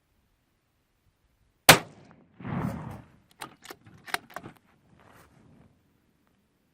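One shot from a Howa 1500 .223 Remington bolt-action rifle, followed by a series of sharp metallic clicks and clatter as the bolt is worked to eject the case and chamber the next round.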